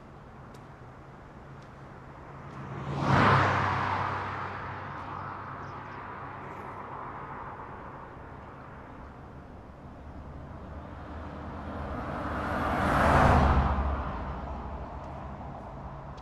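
Two cars passing by at speed, one about three seconds in and another about ten seconds later, each a rush of engine and tyre noise that swells quickly and fades away.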